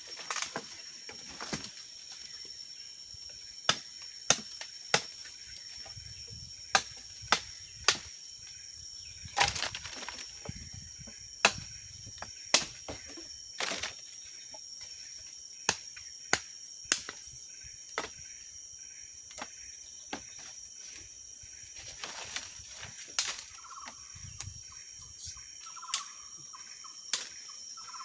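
Sharp knocks and clicks at irregular intervals, a few dozen in all, over a steady high-pitched hum. A steady mid-pitched tone joins about three-quarters of the way through.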